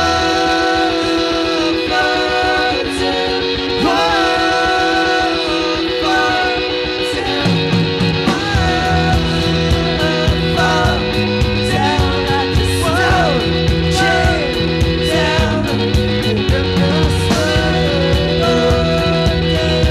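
Live rock band playing: electric guitar, bass and drums, with a melodic line over the top. The low end fills in about seven seconds in.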